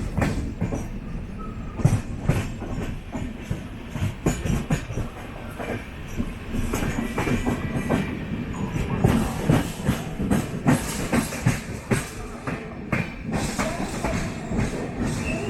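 Passenger coach wheels clattering over rail joints and points as the train runs slowly into a station, heard from inside the coach: irregular clicks and knocks over a steady rumble. A faint high wheel squeal comes in near the end.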